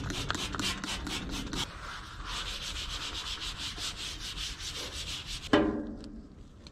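Scrubbing a surface by hand with cleaner: quick back-and-forth strokes at about five a second, then a steadier rub. A single loud thump comes about five and a half seconds in.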